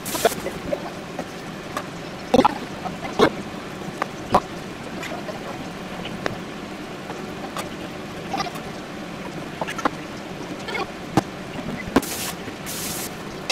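A kitchen knife slicing a cooked sirloin steak, knocking and tapping on a plastic cutting board at irregular intervals. Two short hissing sounds come near the end.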